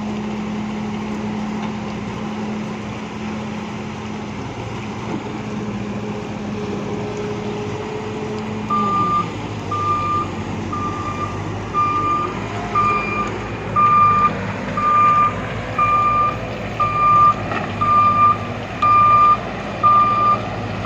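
Bull BS4 backhoe loader's diesel engine running steadily. About nine seconds in, its note drops and the reversing alarm starts beeping about once a second over the engine.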